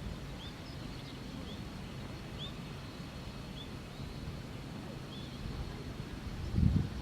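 A small bird repeating short, high chirps roughly once a second over a steady low outdoor rumble.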